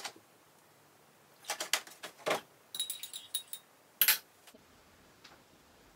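Teaspoon and ceramic mugs clinking while tea is made: a run of light taps about a second and a half in, ringing clinks around three seconds, and one sharper clink at about four seconds.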